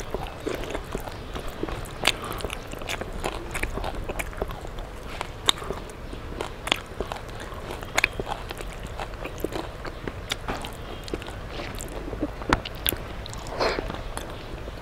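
Close-miked eating with the hand: chewing and lip-smacking in many sharp, irregular wet clicks, with fingers squishing and mashing watery rice.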